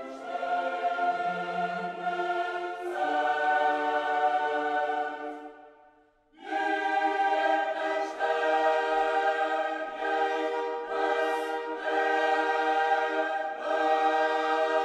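Background music of choir-like voices holding long sustained chords. It fades away about five seconds in, then comes back sharply about a second later.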